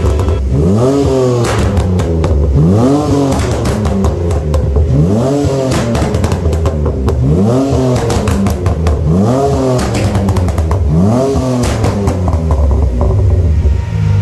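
BMW E30 fitted with a BMW X5's 3-litre inline-six, revved hard from idle in a series of quick throttle blips through its twin-tip exhaust. Each rev rises and falls back, with sharp exhaust pops and crackles on the way down. It settles back to idle near the end.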